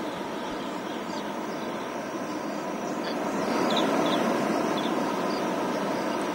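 Rain floodwater rushing and pouring across a flooded field: a steady noise that swells a little about three and a half seconds in, with a few faint high chirps over it.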